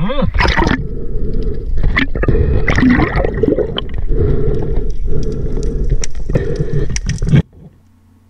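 Muffled underwater sound picked up around a free diver: water churning and bubbling, with knocks and scrapes. It stops abruptly near the end.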